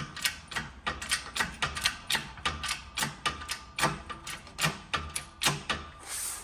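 Small hydraulic shop press at work pressing a gear off a Muncie four-speed transmission shaft: a fairly regular run of sharp metallic clicks, about three a second, ending with a short hiss.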